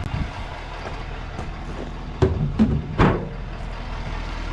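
Heavy machine engine running steadily, with three sharp knocks a little past two seconds in.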